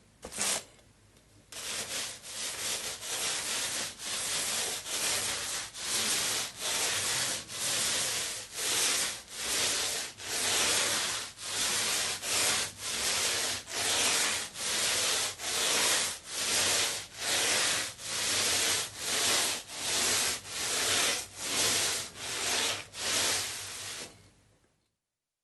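Paint roller rolling back and forth over a surface, a few short strokes and then a long steady series of passes, a little over one a second, each a rough rubbing hiss, stopping shortly before the end.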